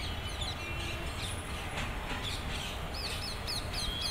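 Small birds chirping, with a quick run of about six short rising-and-falling notes near the end, over a low steady rumble.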